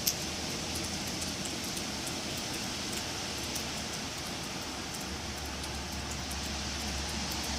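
Wind blowing through trees, a steady rustling hiss of leaves and branches. A sharp click comes just after the start, and a low rumble joins about five seconds in.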